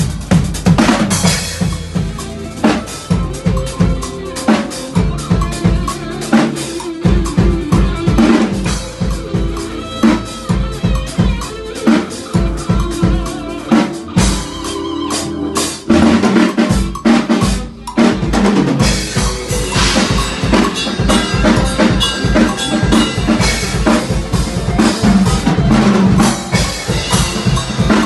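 Nagano Drums Brasil drum kit played in a fast, busy groove, with kick drum, snare and rimshots hit densely throughout.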